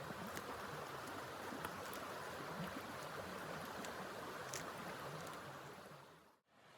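Blizzard wind blowing: a steady rush with a few faint ticks, fading out near the end.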